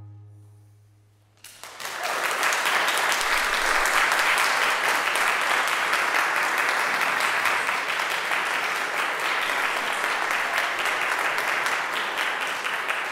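The ensemble's last low note dies away, then about a second and a half in a concert audience starts applauding, a steady dense clapping that thins slightly near the end.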